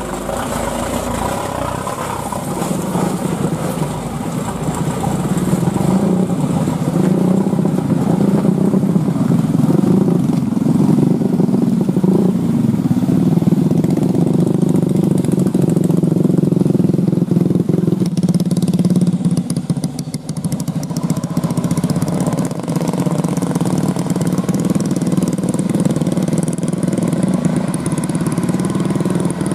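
Light truck's diesel engine running steadily under a heavy load of oil palm fruit bunches as it drives along a dirt track. It gets louder about five seconds in.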